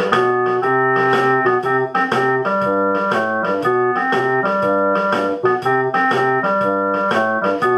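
Instrumental music: a lively organ-sounding keyboard tune of short notes over a moving bass line.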